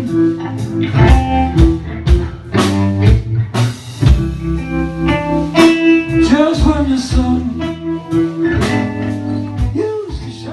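Live acoustic blues: strummed guitar over a steady beat of sharp percussion hits, with a few bent notes, winding down toward the end.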